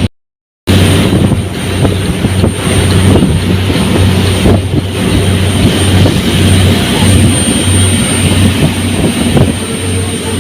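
Speedboat engine running steadily under way, with loud rushing wind noise on the microphone.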